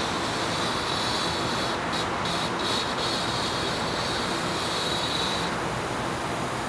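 A razor-blade scraper scraping old rubber sealant off the edge of a double-pane RV window's glass: a steady high scraping that stops twice briefly around two seconds in and ends about five and a half seconds in, over a steady rushing background noise.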